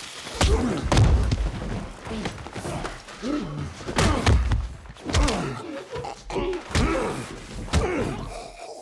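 Hand-to-hand fight: a series of heavy thuds and slams from blows and bodies hitting the floor and walls, with men's strained grunts and gasps between them.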